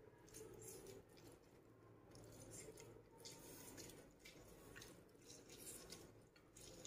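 Near silence, with faint, irregular squishing and dripping as a halved green kinnow is squeezed by hand over a dish of cut fruit.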